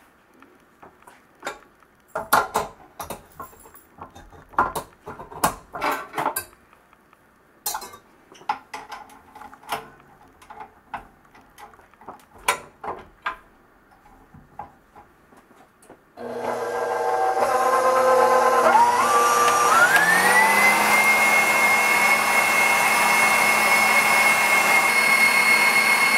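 Metal clinks and knocks as a stainless steel bowl and wire whip are fitted to a KitchenAid Professional 600 stand mixer. About sixteen seconds in, the mixer's motor starts and its whine rises in steps as the speed is turned up, then runs steadily at high speed whipping egg whites.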